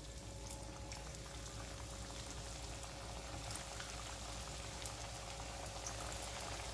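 Oil sizzling and bubbling steadily around squares of wheat-flour and potato dough deep-frying in a kadai, with many small crackles.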